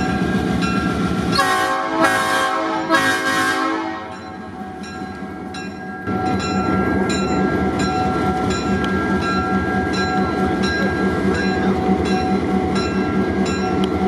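Diesel locomotive sounding its horn in three short blasts, about a second and a half in, over the running engine. The engine then drops back and comes up again about six seconds in, running steadily with a regular clicking roughly twice a second.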